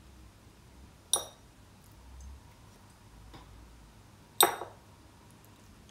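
Two sharp, ringing clinks about three seconds apart: a wooden spoon tapping on a china plate as cherry stones are knocked off onto it.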